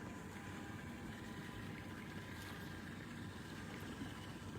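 Steady low rumble and hiss of a fishing boat on the water, with a faint steady high hum.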